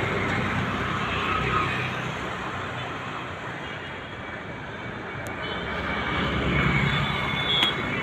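Steady road traffic noise, swelling as a vehicle passes about six to seven seconds in. A few sharp clicks near the end come from a heavy knife cutting into palmyra fruit.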